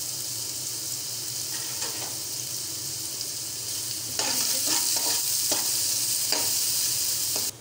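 Diced onions sizzling in oil in a kadai. About four seconds in, a spatula starts stirring and scraping them around the pan, and the sizzle gets louder, with a few short scrapes against the pan.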